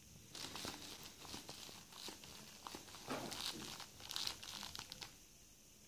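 Faint crackling and rustling of a stiff, not-yet-broken-in leather Wilson A700 catcher's mitt and its thick laces as it is handled and flexed with a hand inside. It stops about five seconds in.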